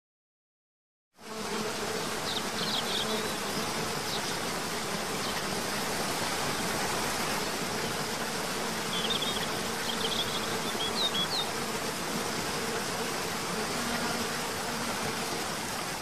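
Waterfall water rushing and splashing in a steady roar that starts about a second in, with a faint steady hum under it and a few short high chirps in two brief groups.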